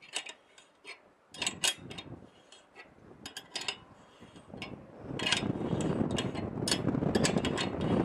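Scattered clicks, then from about five seconds in a dense run of rapid mechanical clicking as the microwave antenna mount's vertical (elevation) adjustment is turned to sweep the dish.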